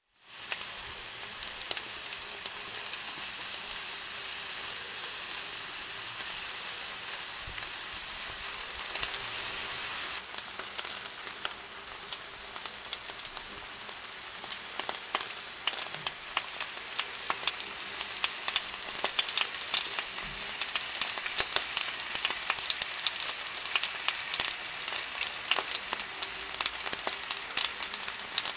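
Dry-aged T-bone steaks sizzling in perforated aluminium grill trays on a grill: a steady hiss with many small crackles and pops, cutting in suddenly at the start.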